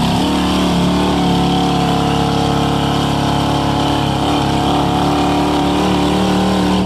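Rock buggy's engine running hard at steady high revs as it climbs a steep dirt bank, spinning its tyres. The engine note drops away suddenly at the very end.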